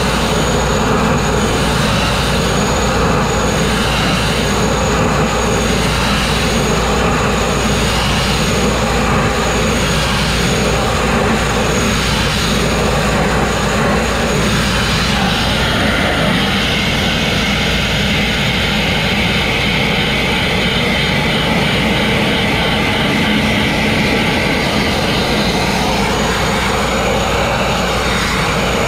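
Abrasive grit blasting of steel: a loud, continuous hiss-and-rush of compressed air and grit from the blast nozzle striking the metal. It pulses about once a second in the first half, then steadies with a changed tone from about halfway.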